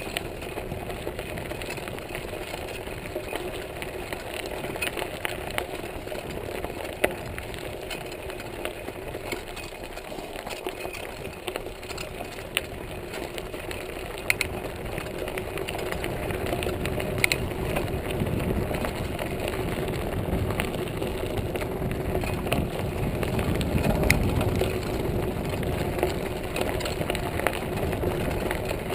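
Montague Paratrooper Pro folding mountain bike rolling along a gravel and dirt trail: steady tyre and drivetrain noise, with scattered sharp clicks and rattles as it jolts over bumps. A low rumble builds through the second half.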